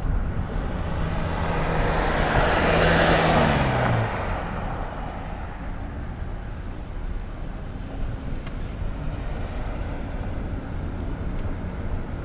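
Car driving on a road: steady road and engine rumble. About two to four seconds in, a louder rushing swell builds and fades, with a low engine note dropping in pitch.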